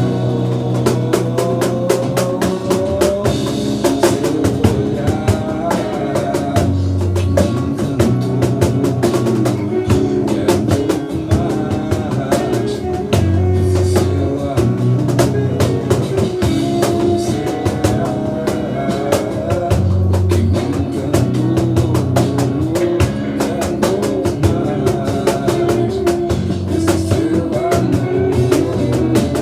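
Batucada, Brazilian samba percussion music, played as a dense, fast drum groove. Under the drumming runs a bass line of held low notes, and a melody wavers above it.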